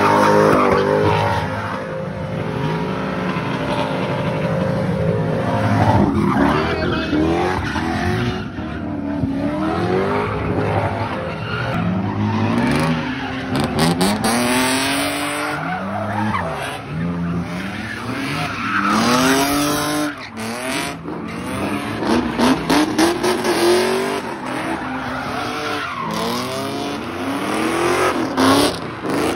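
A car doing donuts, its tyres squealing and skidding without a break while the engine revs rise and fall again and again, every two or three seconds.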